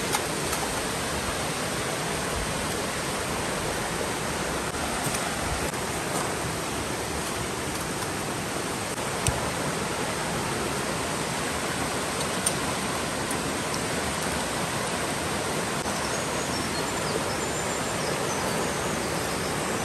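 Steady rushing of a mountain stream, with two sharp clicks about three seconds apart near the middle.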